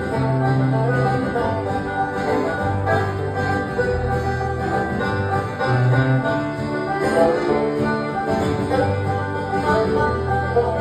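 Instrumental break between sung verses of a folk song: a banjo and an acoustic guitar playing together over long, held low bass notes.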